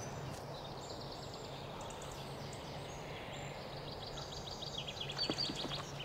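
Quiet outdoor background ambience with a faint steady hum. Twice, a run of rapid, high-pitched chirping trills sounds from a small animal.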